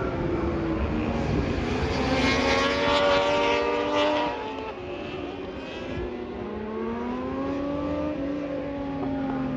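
Racing superbikes on track, engines revving up through the gears as they pass; the loudest pass cuts away about four seconds in, then another bike's engine climbs in pitch.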